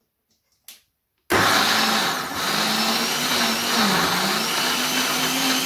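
Electric countertop blender switched on: after a faint click, the motor starts abruptly about a second in and runs steadily, puréeing chickpeas for hummus. Its pitch dips briefly near the middle.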